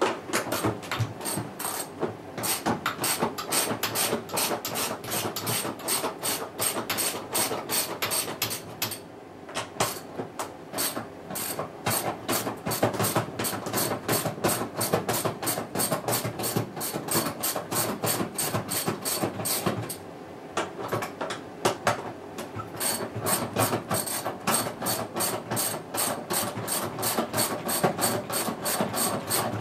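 Ratchet socket wrench clicking rapidly as it undoes the bolts around the rim of a washing machine's plastic outer tub, with short pauses about 9 and 20 seconds in.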